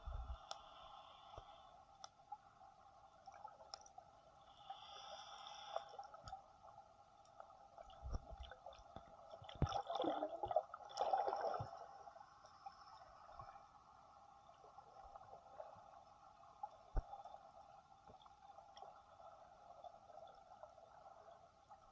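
Faint underwater sound picked up by a camera held in the sea: scattered sharp clicks over a steady hum, with a burst of water gurgling and bubbling around the middle.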